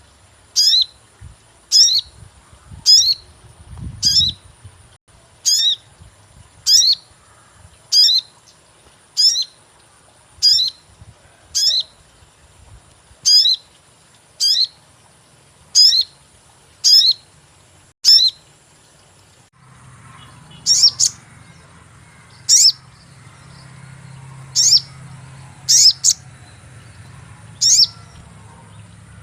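Sogon bird giving its sharp 'cuit' chirp over and over as a lure call, each a quick high note falling in pitch, about one a second. About two-thirds of the way through, the chirps turn less regular, some doubled, over a low hum.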